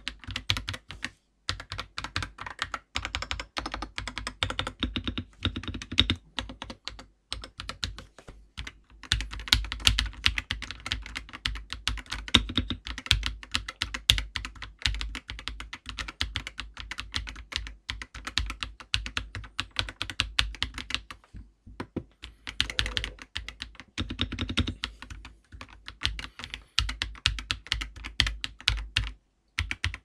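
Typing on an Akko 5075B Plus 75% mechanical keyboard fitted with Akko V3 Cream Yellow linear switches: a fast, continuous clatter of keystrokes with a few short pauses.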